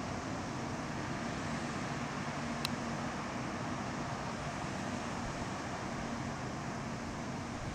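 Steady low rumble of vehicle noise with a faint hum running under it, and a single sharp tick about two and a half seconds in.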